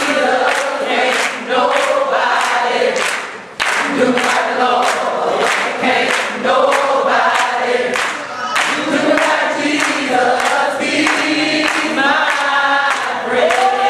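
A group of voices singing a gospel song together, over a steady beat of sharp hand claps.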